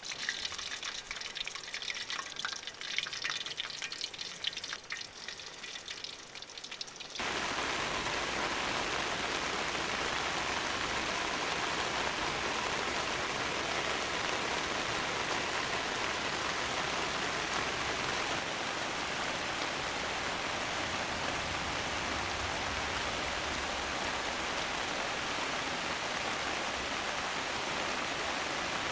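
About seven seconds of uneven crackling hiss, then an abrupt change to steady heavy rain that holds to the end.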